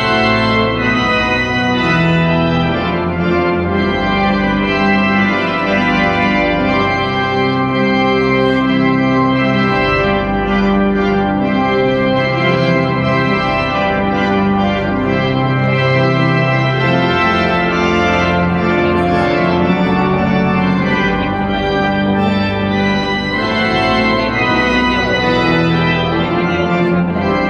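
Church organ playing held chords that change every second or two, steady and loud.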